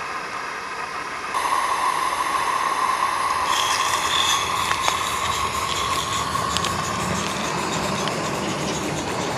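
Gas-fired Roundhouse Linda-class 16 mm scale live-steam locomotive running with its coaches: a steady hiss with a held tone, and a few light clicks from the wheels on the track. It gets louder about a second in.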